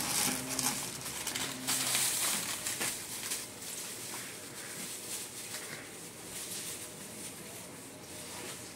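Thin plastic shopping bag crinkling and rustling as snack packets are picked off shelves and dropped into it, loudest in the first three seconds and then softer. Two short low tones sound within the first two seconds.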